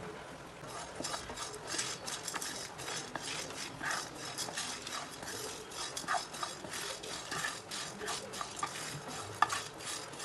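A spoon or spatula stirring whole spices and dried chillies as they dry-roast in a pan: irregular scraping, with the small clicks and rattles of seeds and pods against the pan.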